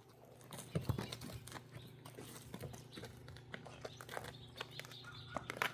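Faint scattered clicks and knocks of a horse moving about, with a steady low hum underneath.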